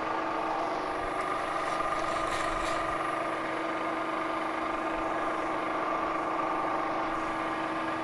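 Milling machine spindle, its motor driven through a VFD, running at a steady speed with an even hum while it turns an edge finder for locating the workpiece's corner.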